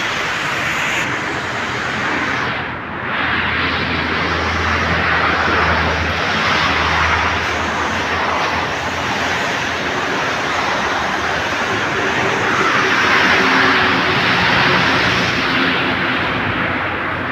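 Heavy rain falling in a steady, dense hiss, with a low hum underneath for a few seconds near the start.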